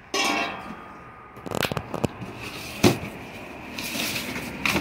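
Cardboard box being handled and pulled open, with crackling and scraping of cardboard, a cluster of clicks, and one sharp knock about three seconds in.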